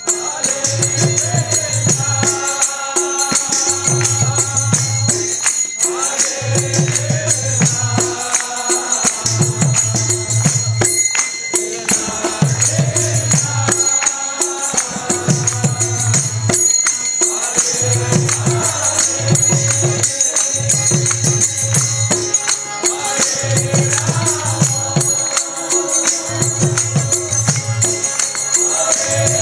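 Live kirtan: a group chanting together to mridanga drums, with a steady jingle of small hand cymbals over a repeating rhythm.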